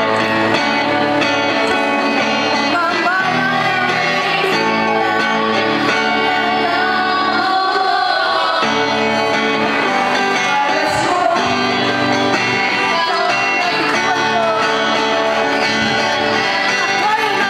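A live band playing a song with electric guitars, and a woman singing the melody into a handheld microphone.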